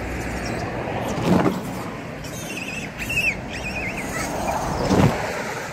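Steady hum of road traffic, with two brief louder low bumps about a second in and near the end. A bird gives a wavering, warbling call in the middle.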